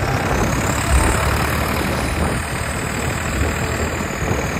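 Tractor engine running steadily under way, a continuous low rumble mixed with road noise, swelling slightly about a second in.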